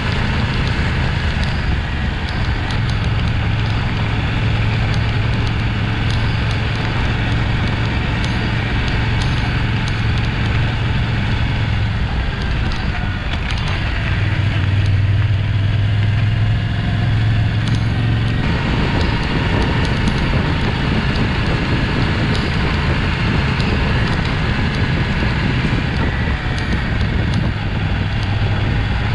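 Yamaha Ténéré 700's parallel-twin engine running steadily under way, mixed with wind and tyre noise on a gravel road. The engine note dips about twelve seconds in, comes back stronger, and changes again about eighteen seconds in.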